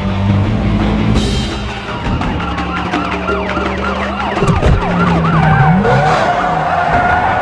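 Several police sirens wailing at once, rising and falling, over the low rumble of a car engine that drops away about halfway through; a single low thump near the middle.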